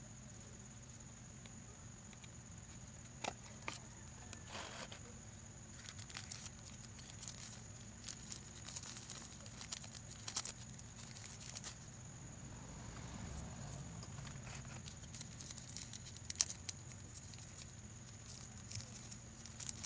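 Faint handling noise of earphone packaging being opened: scattered clicks, taps and short rustles, with a sharper pair of clicks about three seconds in and another about sixteen seconds in, over a steady low hum.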